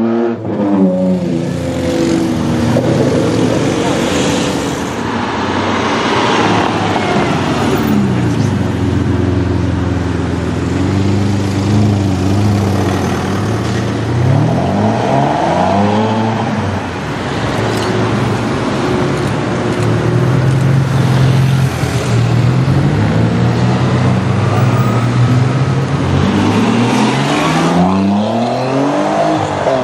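Ferrari 612 Scaglietti V12 with a custom exhaust, loud, revving and pulling away several times. The pitch climbs in short rising runs, with steadier running between.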